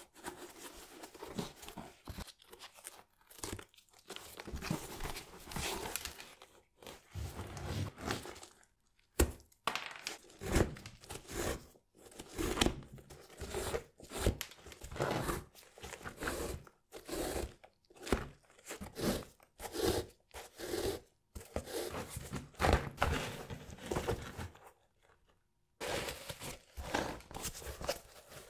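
Irregular crinkling, crunching and scraping handling noises in short strokes with brief pauses, with one longer pause near the end.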